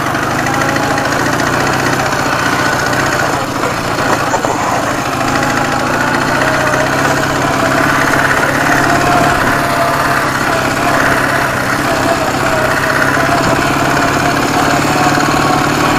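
Ural motorcycle's opposed-twin (boxer) engine running steadily.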